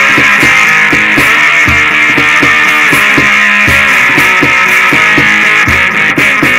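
Instrumental blues-rock passage: an electric three-string cigar box guitar, amplified through a slim LACE pickup, plays a repeating riff over a steady beat.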